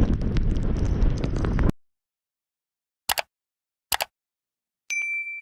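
Mountain bike riding over a trail, with wind on the microphone and small rattles and clicks, cutting off abruptly. After a gap, two short clicks, then a single clear ringing tone that fades over about a second.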